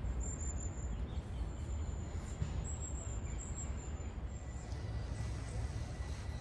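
Outdoor ambience: a steady low rumble with thin, high-pitched bird calls repeating over it, stopping about four and a half seconds in.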